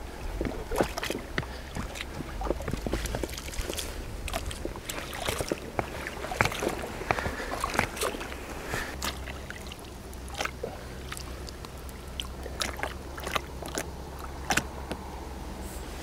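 Irregular clicks, knocks and rustles of gear being handled in and around an inflatable boat among reeds, over a steady low wind rumble on the microphone.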